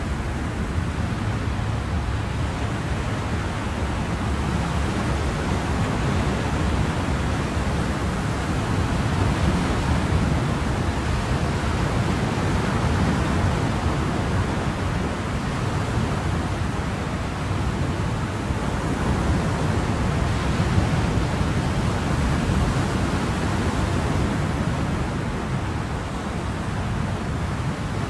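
Ocean waves washing onto a shore, a continuous surf rush that swells and eases slowly over several seconds.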